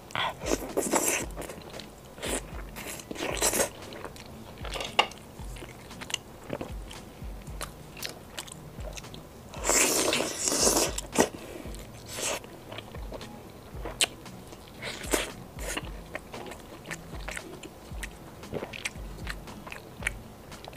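Close-miked eating: biting into and chewing pieces of red-oil bobo chicken, with irregular crunches and mouth clicks; the loudest crunching comes about ten seconds in.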